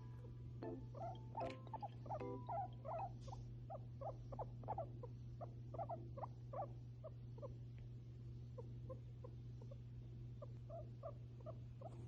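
Guinea pig chutting: a run of short, repeated pitched calls, about two to three a second.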